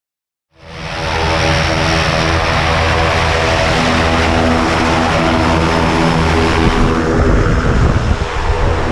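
Single-engine propeller plane's engine running on the ground with the propeller turning: a steady, loud drone with a low hum that fades in about half a second in and grows slightly duller near the end.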